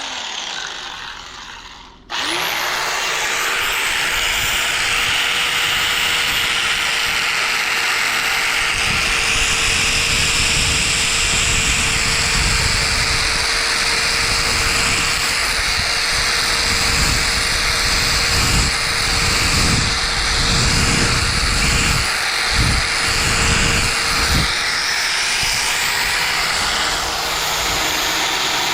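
Small electric belt sander starting up about two seconds in, then running with a steady whine while sanding wooden deck railing between the columns, with rough uneven grinding through the middle as the belt is pressed against the wood. It is loud.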